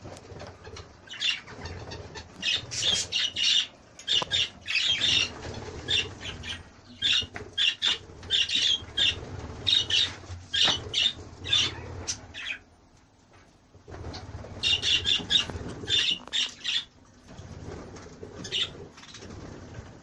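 A flock of budgerigars chirping and chattering in quick bursts of short high calls, with wings fluttering now and then; the calls pause briefly a little past the middle.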